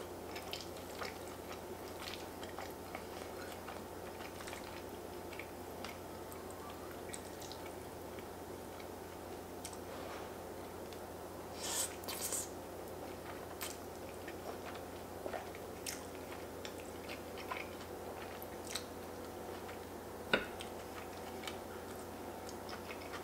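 A person eating fettuccine noodles: quiet chewing with small scattered mouth and utensil clicks over a steady low hum. About halfway through there is a louder slurp as a strand of noodle is sucked in, and near the end a single sharp click.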